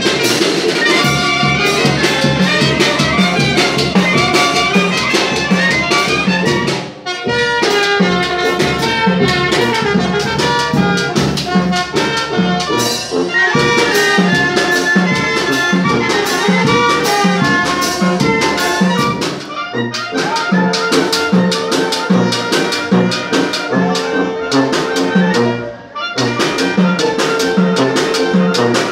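Wind band (banda) playing live: clarinets and saxophones with brass over a steady drum beat, breaking off briefly twice, about 7 and 26 seconds in.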